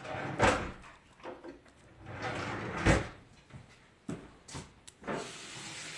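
Kitchen cabinet doors and drawers opened and shut, with two sharp knocks about half a second and three seconds in and a few lighter clatters later on. A steady hiss starts near the end.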